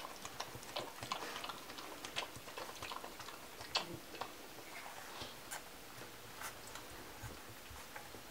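Three-week-old Kromfohrländer puppies nursing and jostling at their mother: soft, irregular clicks and smacks, busiest in the first half, with one sharper click about four seconds in.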